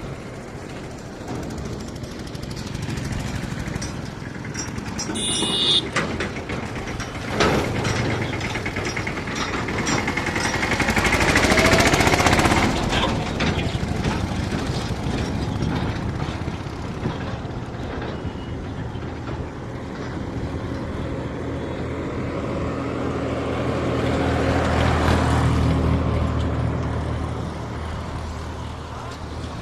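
Heavy vehicle engine running, growing louder about twelve seconds in and again near the end, with a few sharp knocks early on.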